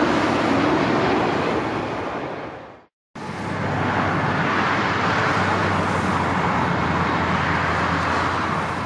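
Steady rushing jet-engine noise from an airliner on final approach, fading out about three seconds in. After a short gap it gives way to a steady rush of airport noise with a low engine hum underneath.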